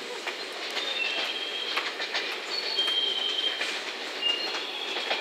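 Container freight train wagons rolling away over curved track and points, the wheels squealing in thin high tones that start and stop at shifting pitches, with scattered clicks from the rail joints.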